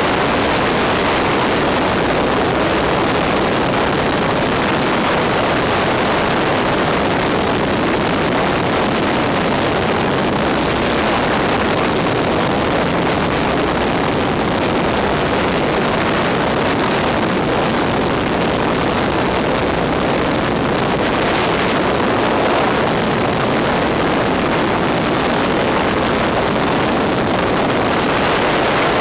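Steady drone of a de Havilland Tiger Moth biplane's engine and propeller in cruising flight, mixed with heavy slipstream wind noise on the microphone in its open cockpit. The sound holds level throughout, without changes in power.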